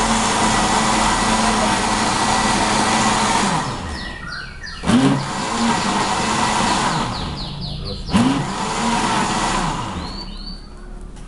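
Electric blender motor running steadily, then switched off and winding down in pitch. It is pulsed on twice more, at about 5 s and 8 s, and each time it spins up sharply and then coasts down. This is the ingredients being ground, and the blend is still coarse.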